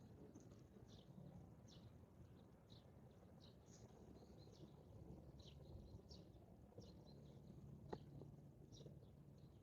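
Faint small-bird chirping: short, high, falling notes repeating about once a second over a low steady background rumble, with a single sharp click about eight seconds in.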